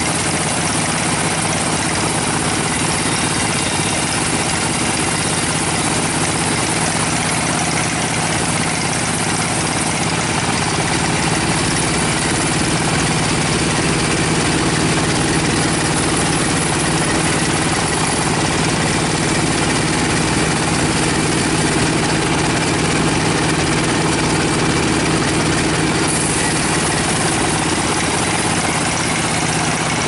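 Band sawmill running as its blade cuts through a rosewood log: a loud, even machine drone with a steady low hum that does not change.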